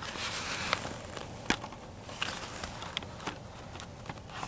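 Camera handling noise: scattered clicks and light taps over a steady hiss as the camera is adjusted by hand.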